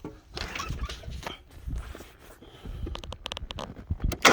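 Scattered handling noises: rustling, soft footsteps and knocks, then a quick run of sharp clicks. Right at the end the mower's 24 hp Kohler Command Pro EFI engine fires up.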